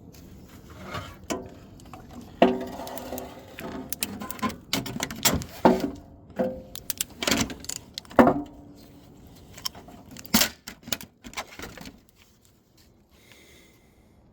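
Metal tools and parts clinking and knocking in irregular strikes, several ringing briefly, then stopping about twelve seconds in.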